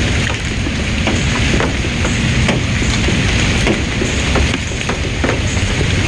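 Steady rain, with many single drops ticking sharply on nearby surfaces and a steady low rumble underneath.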